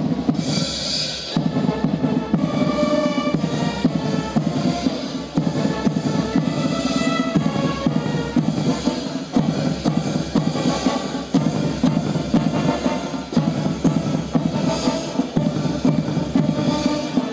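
Military band playing a march: a brass melody over bass drum and snare drum keeping a steady marching beat.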